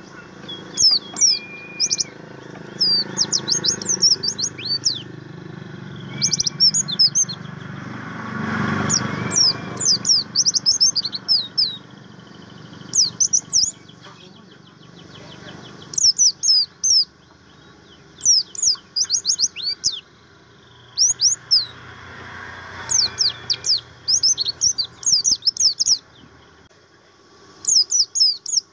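White-eye (pleci, the buxtoni form) singing: phrases of rapid, high, twittering chirps lasting a second or two, broken by short pauses. A faint low background rumble swells briefly about eight seconds in.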